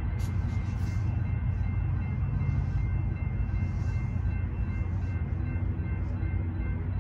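Low, steady rumble of a train at a distance. A crossing signal's bell rings in even repeats over it and stops near the end.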